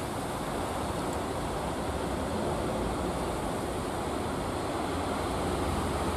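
Steady rush of sea surf breaking on the beach, with a low rumble beneath.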